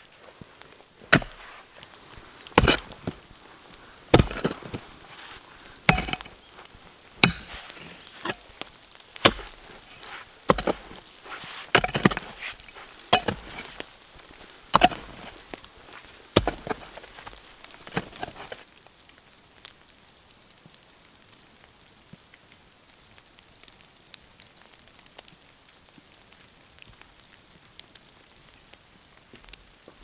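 A pick striking stony soil again and again, about one blow every second and a bit, while a trench is dug for a water pipe. The blows stop about two-thirds of the way in.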